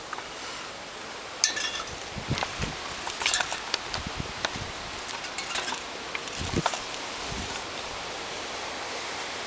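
Wire wheel spokes clinking and tapping against each other and the wheel hub as they are handled, an irregular scatter of light metal knocks that thins out near the end.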